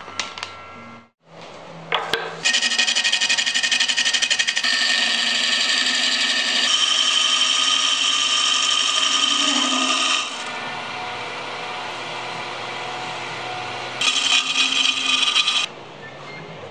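A wood lathe spinning a segmented poplar cylinder while a turning tool cuts the inside, making a loud, steady scraping hiss as it throws off long shavings. The cut eases to a quieter running sound for a few seconds after the middle, then bites loudly again briefly near the end.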